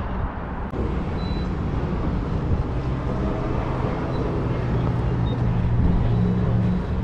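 A motor vehicle's engine running, a low steady rumble that grows a little louder in the second half, amid open-air forecourt noise.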